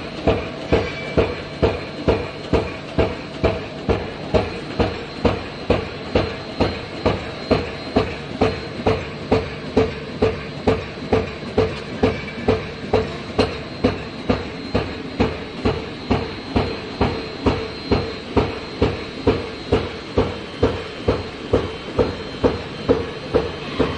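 Mesh drilling machine running in a steady cycle, a regular mechanical stroke about twice a second.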